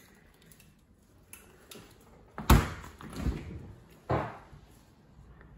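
Fridge freezer doors being shut: a loud thud about two and a half seconds in, a softer knock, then another thud about four seconds in.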